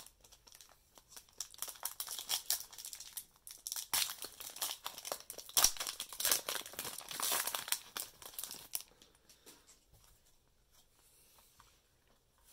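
Foil Pokémon booster pack wrapper being crinkled and torn open by hand: a run of crackling and ripping, loudest in the middle, that dies away about nine seconds in.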